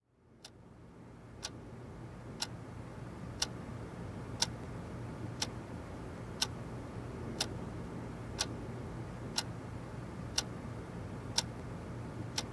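A clock ticking once a second, about a dozen ticks, over a low steady hum that fades in at the start.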